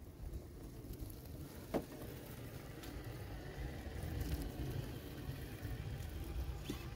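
Traxxas TRX-4 radio-controlled crawler driving over the forest floor: crackling of leaves and twigs over a low rumble, with a sharp snap about two seconds in.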